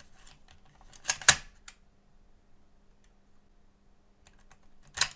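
Sharp mechanical clicks from a partly disassembled Panasonic Amiga floppy drive as it is held and tested: a close pair about a second in and another near the end, with small ticks between, over a faint steady hum. The faulty drive is failing to boot the disk.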